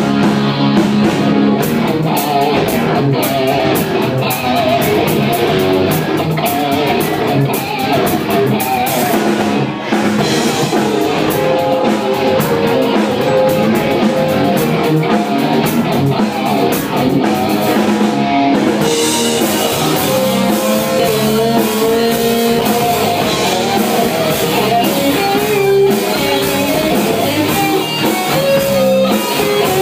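Live rock band playing loud and continuously, with electric guitars and a drum kit. The sound gets brighter and fuller about two-thirds of the way through.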